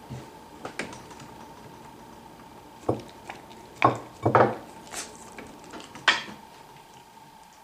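Sharp clinks and knocks of baby carrots and a dog's muzzle against a plate on a wooden table, a handful of separate strikes with the loudest around the middle, over a faint steady hum.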